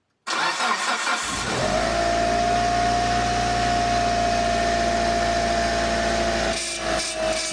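Car engine cranking and catching, then idling with a steady high-pitched whine over the engine note: the abnormal noise of the power steering pump. The whine's pitch sags slightly near the end.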